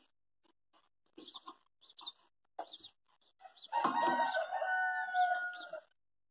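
A rooster crowing once, a long call of about two seconds starting almost four seconds in, with a few faint short calls before it.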